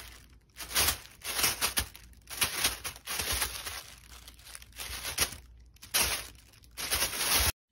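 A thin white plastic carrier bag crinkling and rustling in repeated, irregular bursts as a kitten pounces on it and crawls into it.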